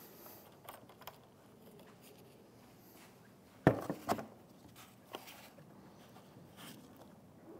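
Foam bumper absorber being pressed into place by gloved hands, with two sharp knocks a little past halfway and a few faint clicks and rustles around them.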